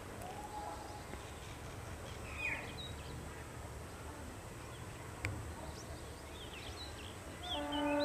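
Outdoor ambience with a low steady rumble and a few faint, distant bird chirps, and one sharp click about five seconds in. Near the end a steady pitched tone starts up and holds.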